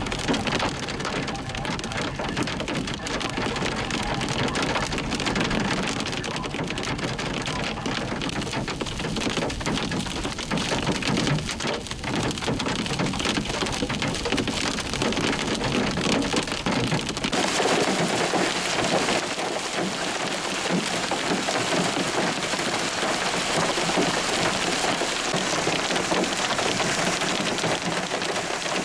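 Hail and heavy rain pelting a moving vehicle: dense sharp clicks of hailstones over low road rumble. A little past halfway it switches abruptly to an even hiss of hail and rain falling on grass and pavement, without the rumble.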